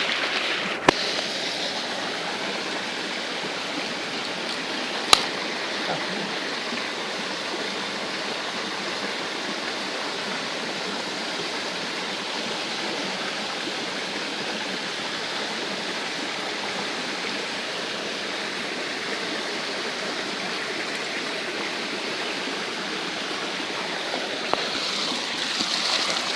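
Steady rushing of a waterfall stream, with two sharp clicks, about one second and about five seconds in.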